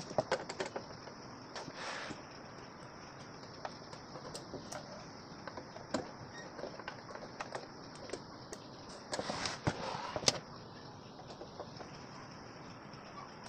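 Screwdriver working the screws out of a sheet-metal amplifier cover: scattered small metal clicks and scrapes, with a louder cluster of clatter about nine to ten seconds in.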